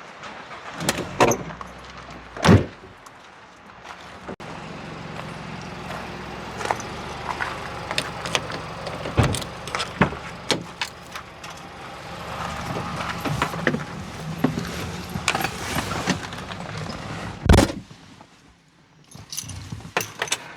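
Knocks, clatter and rustling around a van being packed up, with two loud thumps, one a couple of seconds in and one near the end, over steady background noise.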